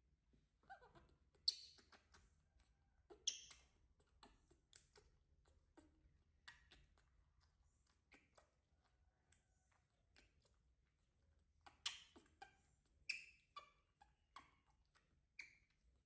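Faint, scattered small clicks and squeaky ticks of eating and handling fruit: a baby monkey chewing and a citrus fruit being peeled and pulled apart by hand. A few sharper clicks stand out, two in the first few seconds and two more a little past the middle.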